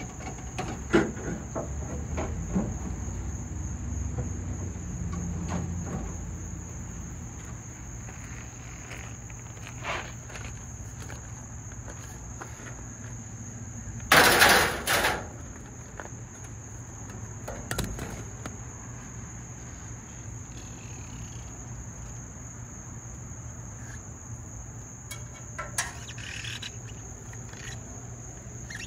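A steady high-pitched trill, like insects, runs over a low hum. Scattered knocks and clatters, plausibly from handling scrap copper pipe, break through now and then; the loudest is a burst of about a second near the middle.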